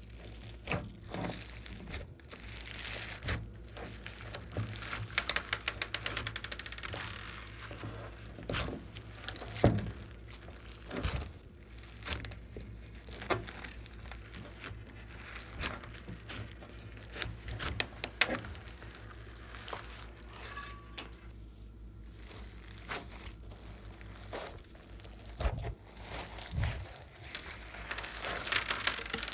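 Glossy slime being squished and stretched by hand, giving irregular sticky clicks, crackles and pops, with a quick run of clicks a few seconds in.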